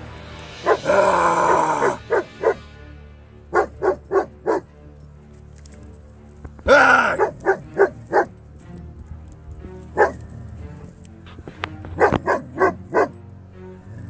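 A dog barking repeatedly in quick clusters of short barks, warding off a cougar, with two longer, harsher cries about a second in and about halfway through. Background music runs beneath.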